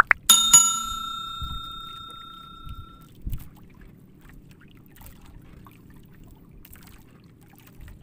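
Like-and-subscribe animation sound effects: two quick clicks, then a bell ding that rings on and fades out over about three seconds. Under it and after it, faint low sea and boat noise.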